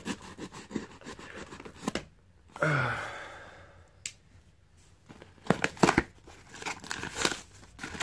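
Packing tape on a cardboard shipping box being slit with a knife and torn open: a run of quick scratchy cuts, a quieter pause, then more ripping cardboard and rustling as the lid is pulled back.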